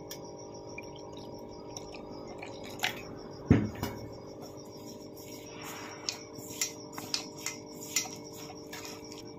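Water poured into a steel mixing bowl of gram flour, with one sharp knock of a vessel on the bowl about three and a half seconds in and a brief soft splash. Then come light clinks and clicks as a hand mixes the batter against the steel, over a steady hum.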